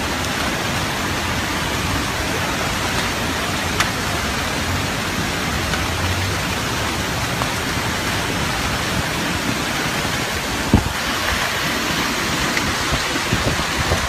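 Heavy rain pouring down in a dense, steady hiss, with a sharp tick about four seconds in and a thump about three-quarters of the way through.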